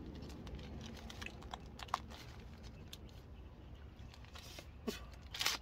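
Light handling noises as things are picked up and moved: scattered faint clicks and rustles, a sharp tick about two seconds in, and a louder crinkling rustle near the end.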